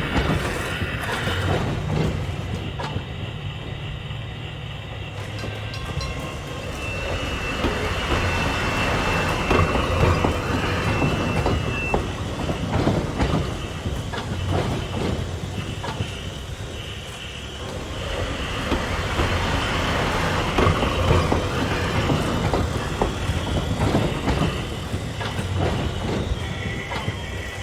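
Remote-control toy train running on its track: a steady motor hum with many small clicks from the wheels over the track, growing louder and fainter in turn as it comes and goes.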